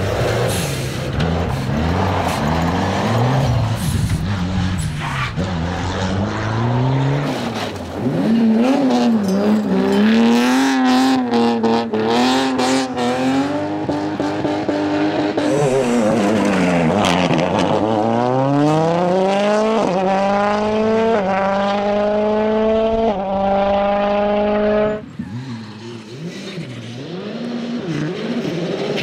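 Rally car engines at full race pace, the pitch falling and rising as a car brakes and accelerates. Near the end one car pulls hard through the gears, its engine note climbing in steps with quick upshifts, before the sound drops off suddenly.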